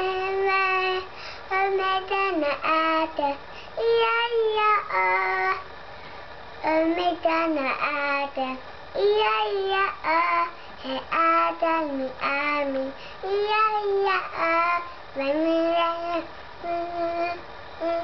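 A young child singing a song in short phrases of held notes, stopping briefly about six seconds in.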